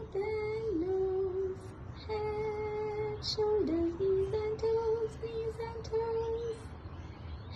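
A voice singing a slow melody without words, in long held notes, with a short dip in pitch twice, about a second in and again near the middle.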